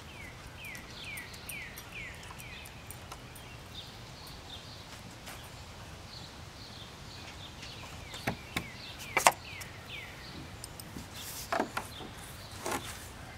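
A bird repeating quick chirps that fall in pitch, about two or three a second for the first few seconds, with softer chirps after. In the second half come several sharp knocks from the plastic roof panel being handled, the loudest about nine seconds in.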